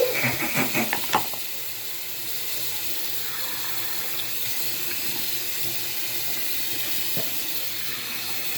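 Bathroom sink tap running in a steady stream, preceded by a few quick knocks and clatters in the first second or so.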